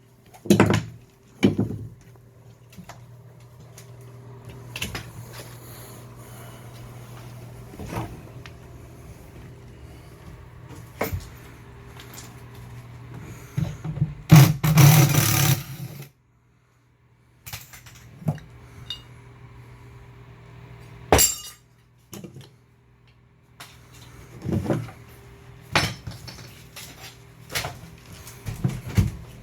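Fiberglass tub surround panels being broken and pried loose: scattered sharp knocks, cracks and thuds, with a loud harsh rasping burst lasting about two seconds around the middle.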